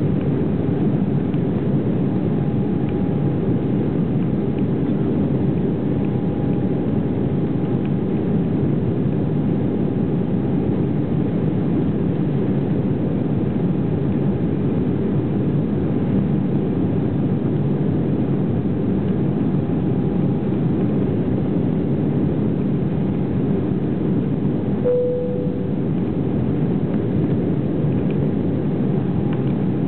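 Steady roar of a jet airliner's engines and rushing air heard inside the passenger cabin during the climb. A short single tone sounds briefly near the end.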